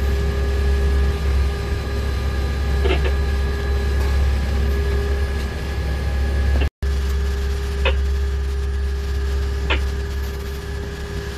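Pilot boat's engines droning steadily while underway, heard on board: a low hum with a few steady whining tones over it. The sound drops out for an instant about two-thirds of the way through.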